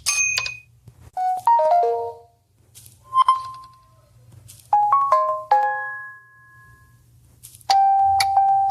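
Samsung Galaxy S25 Ultra notification tones played one after another: five short electronic chimes and little melodic jingles, each starting with a click. The last is a single held tone near the end.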